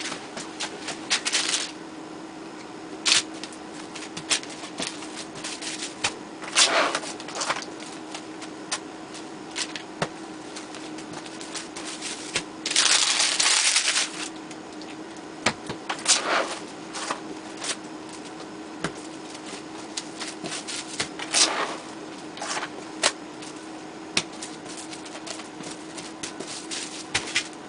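Plastic cling wrap crinkling and crackling in irregular clicks as blocks of cheese are wrapped by hand, with a longer rasp of film pulled off the roll about halfway through.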